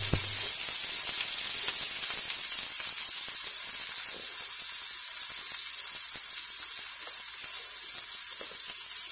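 Sliced onions frying in hot oil in a nonstick pan: a steady sizzle. A spatula scrapes the pan once at the very start.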